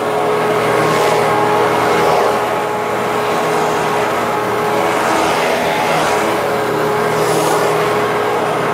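Hoover Twin Chamber bagless upright vacuum cleaner running steadily, its motor humming under a rush of suction air, with small swells as it is pushed back and forth over the floor.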